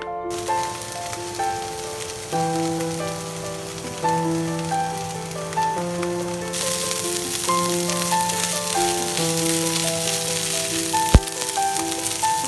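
Soy-based chicken-style chunks sizzling in a frying pan, the sizzle growing louder about halfway through, under background music with steady melodic notes. One sharp knock near the end.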